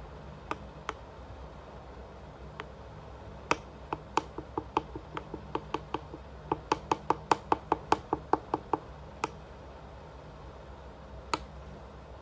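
A spoon stirring a thick chocolate-malt cereal mix in a porcelain bowl, tapping and clinking against the bowl's side. A few separate taps come first, then a quick run of about three to four taps a second for several seconds, and one last tap near the end.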